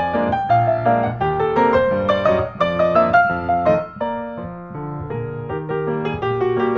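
Background piano music, a light melody of quick notes that softens for a couple of seconds past the middle.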